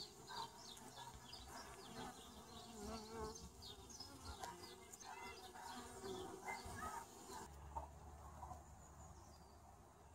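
Faint buzzing of honeybees at a hive entrance, with individual bees flying close past.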